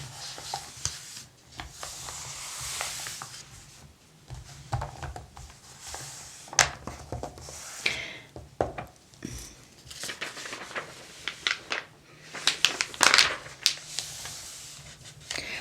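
Paper pages of an old mail-order catalog being handled and turned, crinkling and rustling, with a few sharp crisp snaps and a longer swish or two as a page slides over.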